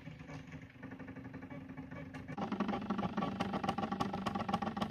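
NEJE desktop laser engraver running as it burns a stencil: a steady machine hum that grows louder about two and a half seconds in, with a run of short ticks as the laser head steps across the design.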